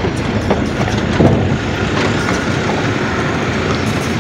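Hyundai Shehzore light truck driving on the road, heard from its open cargo bed: a steady engine and road rumble with a couple of brief knocks and rattles.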